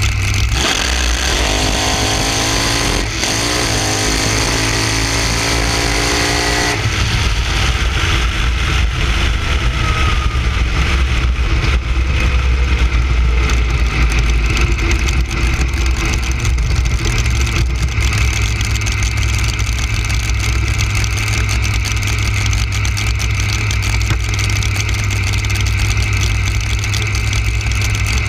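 Front-engine drag car's engine, heard from onboard, revving up under full throttle with a steadily rising pitch for about five seconds, then cutting off abruptly. The car rolls on with a loud steady low rumble and a faint whine that falls in pitch.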